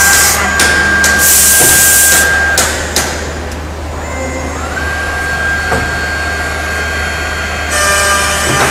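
CNC woodworking machine for lock and hinge recesses running: a steady high spindle whine over a low hum, with hissing and sharp clicks in the first few seconds. The whine stops about two and a half seconds in and rises back to speed about five seconds in.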